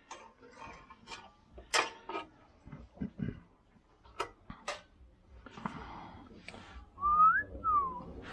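A person whistles two short notes near the end, the first gliding up and the second gliding down. Before that come scattered light clicks and knocks of motorcycle parts being handled.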